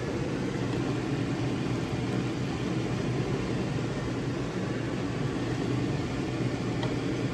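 Steady low hum and rush of noise, even and unbroken throughout.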